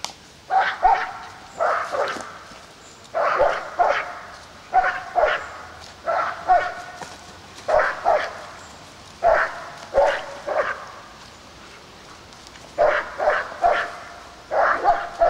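German Shepherd barking in quick clusters of two or three barks, repeated every second or two, with a pause of about two seconds past the middle.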